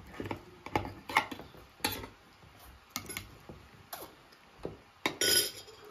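Metal tongs and a fork tapping and clinking on china plates and a serving platter as pieces of grilled meat are served, with irregular clicks about every half second and a longer scraping clatter about five seconds in.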